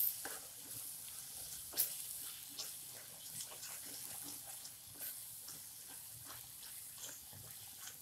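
Thick tomato and spice masala sizzling as it is roasted (bhuna) in a nonstick pan, while a spatula stirs it with soft scrapes and taps against the pan.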